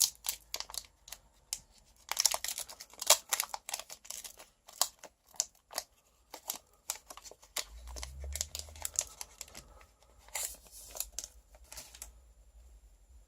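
Pokémon booster pack's foil wrapper crinkling and being torn open, with cards handled, in irregular clusters of sharp crackles. There is a brief low thud about eight seconds in.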